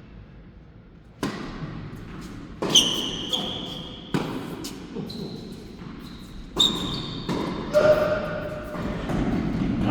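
Tennis ball being struck and bouncing on an indoor court: about five sharp hits spaced a second or more apart, each ringing on in the hall.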